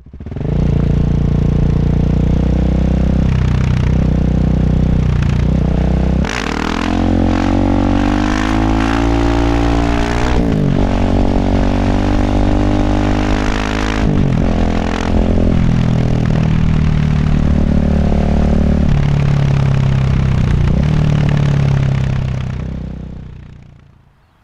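Single-cylinder engine of a 2019 KTM 690 SMC R supermoto through a Tekmo titanium exhaust with an Arrow muffler, running hard: the pitch climbs in a few long pulls with sudden drops between them, like upshifts under acceleration, then the sound fades out near the end.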